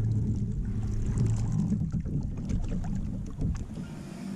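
Outdoor ambience on a kayak: wind rumbling on the action camera's microphone and water lapping against the hull, with a few small knocks. The rumble thins out and drops in level near the end.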